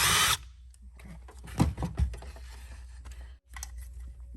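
A power drill boring a pilot hole into sheet metal of a car door frame for a rivet nut, running briefly and stopping just after the start, followed by scattered tool clicks and knocks, with one sharper knock about a second and a half in.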